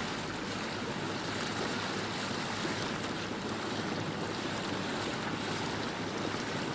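Steady rush of wind and water around a small yacht under way, an even noise with no distinct events.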